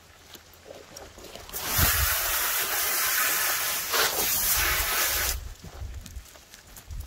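Water spraying from a hose nozzle onto a wet plywood cutting table to rinse it. It is a steady hiss that starts about a second and a half in and cuts off suddenly near five and a half seconds.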